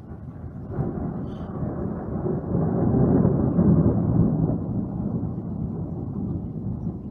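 Thunder rolling after a lightning strike: a long, low rumble that builds from about a second in, is loudest around the middle and slowly fades.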